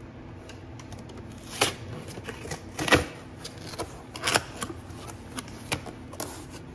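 Cardboard box being opened by hand: the glued end flap tears loose and the card crackles and scrapes in irregular clicks and rustles, with a few sharper snaps.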